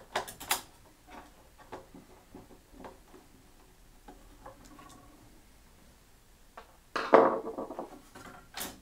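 A screwdriver turning a small screw inside an overhead projector's metal chassis: light clicks and scrapes of tool and screw. About seven seconds in there is a louder clatter, and just before the end a sharp knock.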